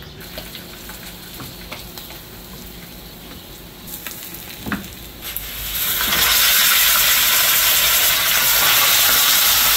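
Snakehead fish (dalag) sizzling loudly in a frying pan of hot coconut milk; the sizzle starts about six seconds in, after a quieter stretch with a few light clicks.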